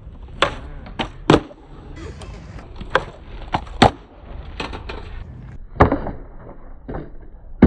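Skateboard doing stationary ollies on paving stones: the tail snaps down and the wheels clack back onto the ground in sharp, irregular knocks, several in a row.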